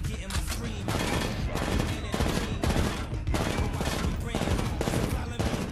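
Rapid rifle gunfire: a long run of shots fired in quick succession.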